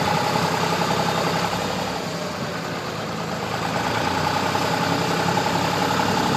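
New Holland tractor's diesel engine running under load as it pulls at the paving. The sound sags about two seconds in, as the engine bogs, and builds again from about four seconds as it is given more throttle.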